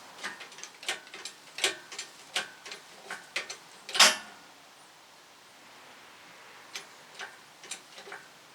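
Light metallic clicks and ticks, about two a second, from an engine hanging on its hoist rigging, with one loud metallic clunk about four seconds in that is taken for the lifting chain shifting a little.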